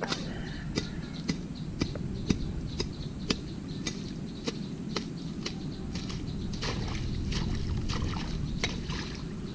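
Hands working in shallow muddy water at the bank, sloshing and trickling, over a steady low rumble. Sharp clicks come about twice a second throughout.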